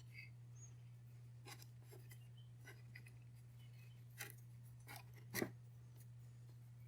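Faint hand-work sounds of jute twine being tied onto a birdhouse's metal eye bolts: a few small, sharp clicks and rubs, the loudest about five and a half seconds in, over a steady low hum.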